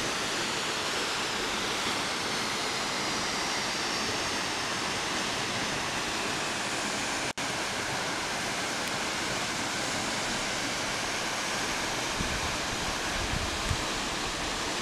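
Steady rush of South Falls, a tall plunging waterfall, falling water heard as an even hiss-like roar. It breaks off for an instant a little past the middle, and a few low bumps come near the end.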